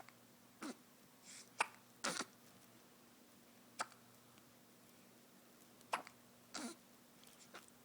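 Baby hiccuping: a string of short, sharp hiccups at uneven gaps, some less than a second apart and one pause of about two seconds.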